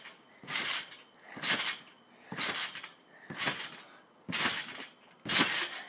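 Someone bouncing steadily on a trampoline, a short burst of noise from the mat and springs with each bounce, about one a second.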